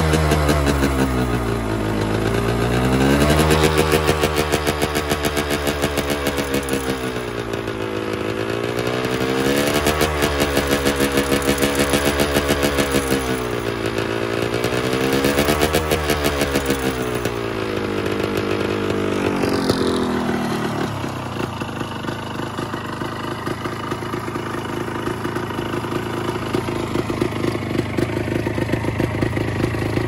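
1974 Can-Am 125's two-stroke single-cylinder engine, breathing through a forest-friendly spark-arrestor muffler, revved up and down several times, then dropping back to a steady idle about twenty seconds in.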